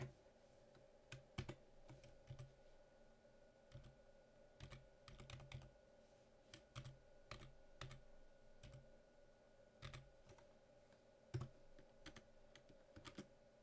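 Faint typing on a computer keyboard, single key presses at uneven intervals as a password is entered, over a steady faint hum.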